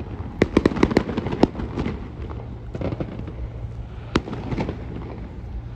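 Fireworks bursting: a rapid string of sharp bangs in the first second and a half, a few scattered bangs after, and one sharp report about four seconds in, over a continuous low rumble.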